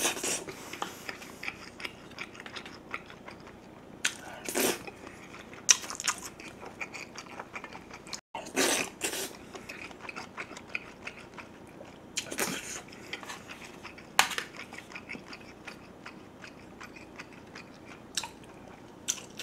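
A person chewing food close to the microphone: steady soft, wet mouth clicks, broken every few seconds by a louder short eating noise.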